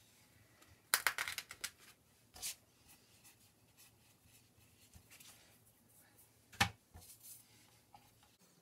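Hands handling plastic sugarcraft tools and a plastic board on a hard work board: a quick run of small clicks and taps about a second in, another tap shortly after, and a sharper knock later on.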